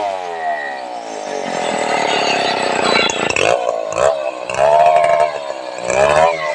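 Stihl 070 two-stroke chainsaw engine: its pitch falls steadily over the first couple of seconds as the throttle comes off, then it revs up and down in short blips.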